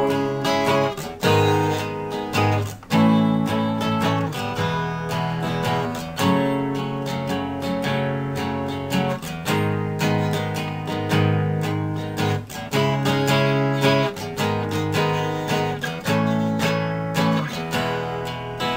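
Instrumental break in a lo-fi song: strummed acoustic guitar chords with no singing.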